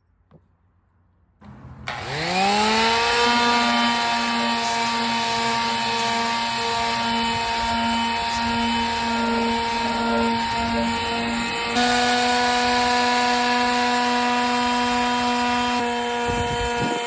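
Electric power saw motor spinning up from rest and running at a steady high whine, its pitch stepping up slightly about twelve seconds in.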